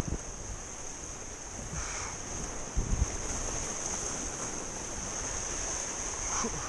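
Sea surf washing on a rocky shore as a steady rush, with wind buffeting the microphone in short low thumps near the start and about three seconds in. A steady high whine runs above it.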